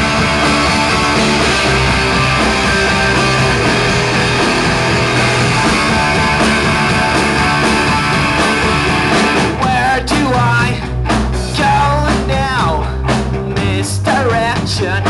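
Live rock band playing an instrumental intro. A dense wall of guitar sound gives way, about halfway through, to a sparser passage with sharp drum hits and a bending lead line.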